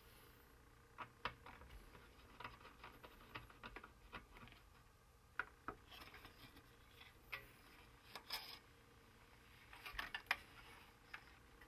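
Faint, scattered clicks and light taps of a circuit board and metal parts being handled as an LCD monitor's power board is freed from its sheet-metal chassis, with a small cluster of slightly louder clicks near the end.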